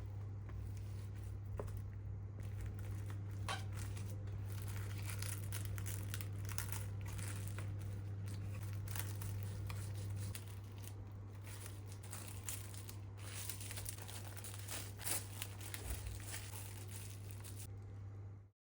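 Crinkly wrapping being handled, rustling and crinkling with small clicks, over a steady low hum that drops a little about ten seconds in.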